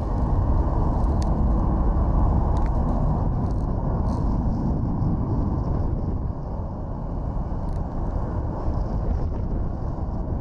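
Steady low rumble heard from high ground above an airport: wind buffeting the microphone mixed with distant jet-engine noise, easing a little after about six seconds.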